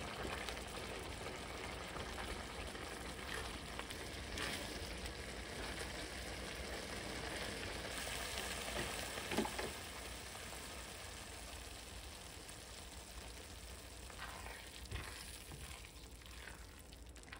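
Mapo soft-tofu sauce, thickened with starch slurry, bubbling and sizzling in a wok as it boils, with scattered small pops. A silicone spatula stirs it, with one sharp tap about halfway through.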